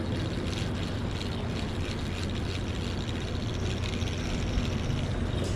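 Steady low engine-like drone, with a fine rapid ticking on top as a fishing reel is cranked to bring in a hooked fish.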